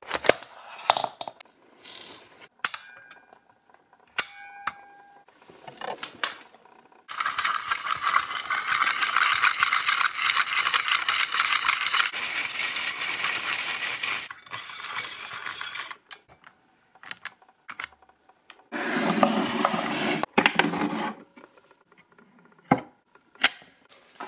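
1920s Alef Privat portable film projector mechanism running: scattered clicks and clacks, then a long, even, rapid rattle of the film transport and reel lasting about nine seconds, and a shorter rattle later on.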